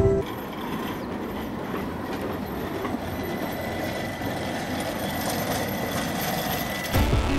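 A tram passing close by: a steady rumble of wheels on rails, with a faint thin whine above it.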